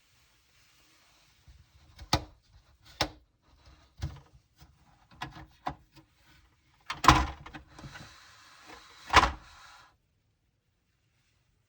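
Hands handling the fan's parts and packaging: a series of sharp knocks and clicks, the loudest two about seven and nine seconds in, with soft rustling between them.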